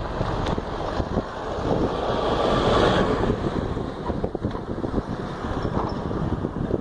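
Wind buffeting the microphone, with a road vehicle passing that swells to its loudest about three seconds in and then fades.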